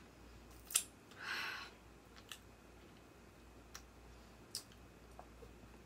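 Faint mouth sounds, lip smacks and tongue clicks, from licking food off a finger, with a short breath about a second and a half in. A few more scattered soft clicks follow over quiet room tone.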